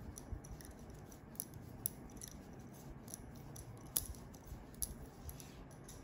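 Knitting needles clicking faintly and irregularly as a row of purl stitches is worked, with a few sharper ticks about two and four seconds in.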